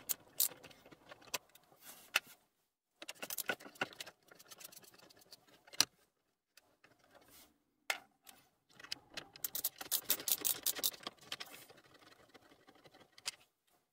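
Short Phillips screwdriver undoing the brass screws of the instrument cluster in the dashboard: quiet irregular clicks and small metallic rattles, in two busier spells about three seconds in and again around ten seconds.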